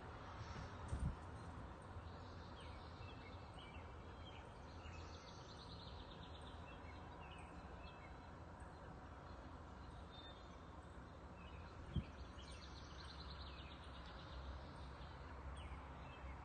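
Faint bird chirps and short trills over a steady low background hum, with two dull low bumps, one about a second in and one near twelve seconds.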